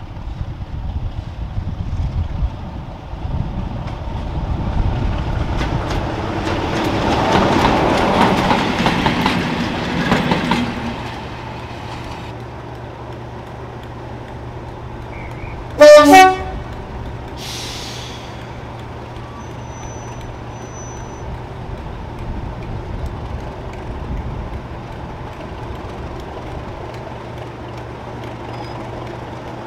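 BR Class 33 diesel locomotive 33012 approaching along the line, its engine and wheels growing louder up to a peak about 8 seconds in, then cut off suddenly. After that a Class 37 diesel locomotive idles steadily, and about 16 seconds in a diesel locomotive horn gives one short, loud blast.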